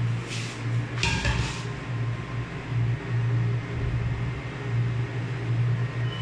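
Steady low mechanical hum that swells and dips about once a second, with a short rustle of handling about a second in.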